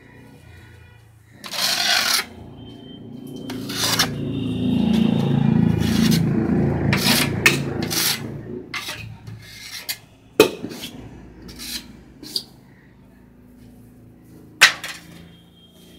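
A hand tool scraping and rubbing across a metal chalk mould tray filled with plaster. It is a long rubbing in the middle, broken by sharp scrapes and knocks, with the loudest knocks about ten seconds in and near the end.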